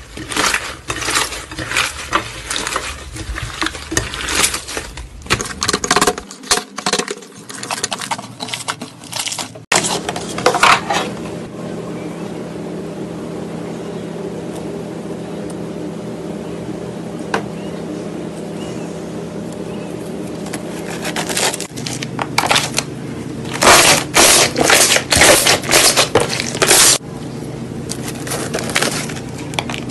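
Slime squished by hand, a rapid sticky crackling and popping. Then slime pressed through a metal wire grill rack, with a steady low hum through the middle stretch and more bursts of crackling and popping near the end.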